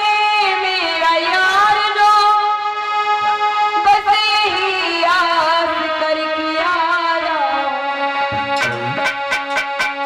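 A woman singing a Hindi devotional song into a microphone, her voice gliding and holding long notes over steady held instrumental notes. Near the end a quick run of about five sharp drum strokes comes in.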